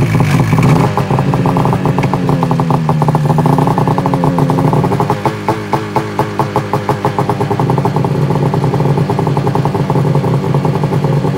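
Ski-Doo MXZ 800 snowmobile's two-stroke twin engine running just after starting. Its pitch dips and recovers in the first few seconds, then it settles into an idle that pulses unevenly.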